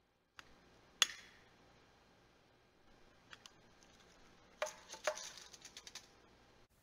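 Small clicks and knocks of a candle lighter being handled at an Advent wreath: one sharp click about a second in, a couple of faint ticks, then a quick run of clicks and knocks near the end.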